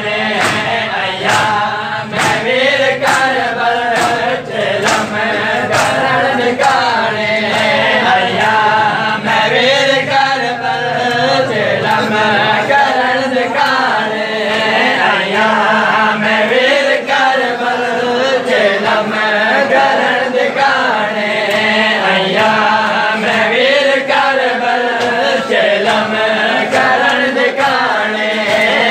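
A group of men chanting a noha (a mourning lament) together, the voices rising and falling in a repeated melody. A steady beat of sharp slaps keeps time under it, the chest-beating (matam) of the mourners.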